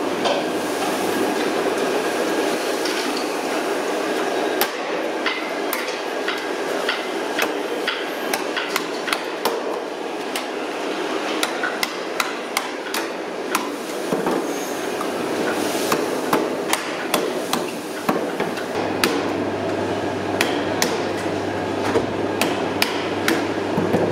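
Irregular sharp metallic knocks and taps, like hammer blows, over a steady background noise; a low steady hum joins in about three quarters of the way through.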